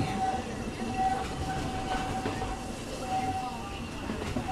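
Walt Disney World Railroad's narrow-gauge steam train heard from aboard a passenger car, running steadily along the track with a steady rolling rumble. A thin high squeal comes and goes several times.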